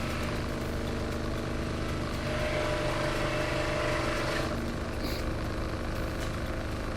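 Steady mechanical hum of a running engine, swelling a little in the middle with a brief higher hiss about five seconds in.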